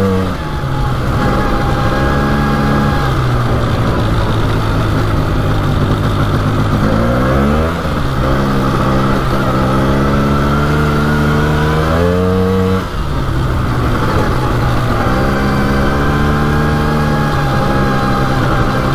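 Polaris 400 4x4 ATV engine running under way on a trail, its pitch following the throttle: the revs climb at the start, then climb and drop off twice, about eight and about thirteen seconds in, before holding steady again.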